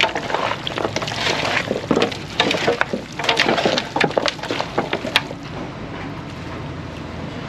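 Liquid sloshing with a quick run of sharp knocks and clatters for about five seconds, then a steadier, quieter noise.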